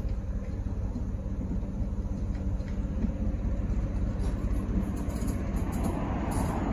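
Class 73 electro-diesel locomotive, running on its English Electric diesel engine, hauling a train away from the station with a steady low rumble. The running noise grows louder near the end, with a few brief clicks.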